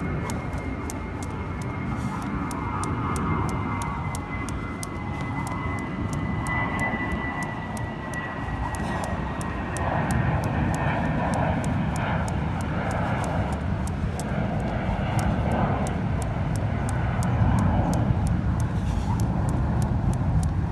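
A jump rope clicking against the pavement about three times a second, steady and even. Under it an airplane passes overhead with a low drone and a thin high whine that slowly falls in pitch.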